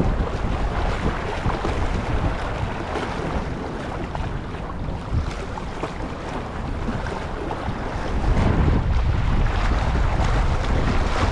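Wind buffeting the microphone over small sea waves washing and splashing against the rocks of a breakwater, louder near the end.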